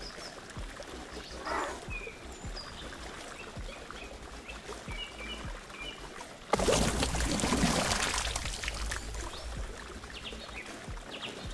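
A released chub splashing at the river surface. About six and a half seconds in comes a sudden loud splash that fades over a couple of seconds. Birds chirp faintly before and after.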